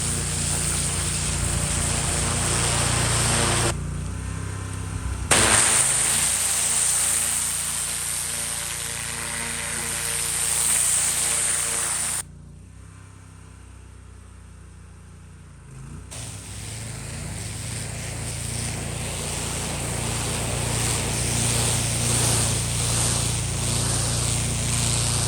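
Pressure washer running steadily under a loud hiss of high-pressure water spraying concrete. The spray cuts out briefly about four seconds in, and again for a few seconds just past the middle, while the motor keeps running.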